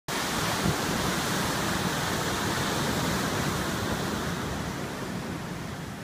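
Pacific Ocean waves and surf washing, a steady rushing noise that eases slightly near the end.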